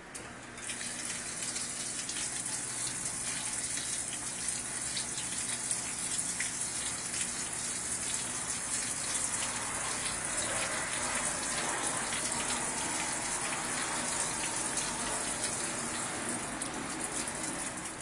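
Water spraying into the drum of a Brastemp Vantage top-load washing machine during its fill, a steady rushing hiss that starts about half a second in and cuts off at the end. This is the water-inlet stage, which the machine repeats in pulses before the wash begins.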